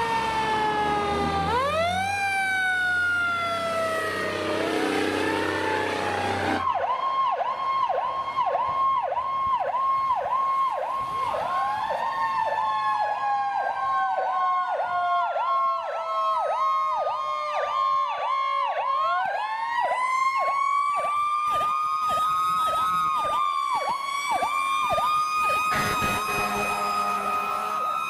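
Fire engine siren: falling wails that jump back up, switching about seven seconds in to a fast yelp of roughly two to three cycles a second. A second, slower wailing tone sweeps over the yelp in the second half.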